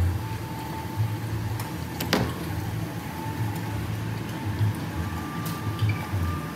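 Low, uneven rumble of a tabletop grill meal, with one sharp clink about two seconds in and a faint steady high tone.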